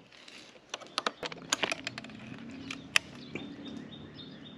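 A run of sharp clicks and light plastic knocks as a cover on an electric dirt bike is unclipped and opened by hand, followed about three seconds in by a faint steady high tone.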